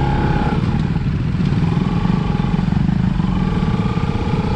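Motorcycle engines running at low speed as a group of motorbikes rolls slowly in single file over a dirt path. There is a steady low rumble with a held engine note that drops away about half a second in and returns.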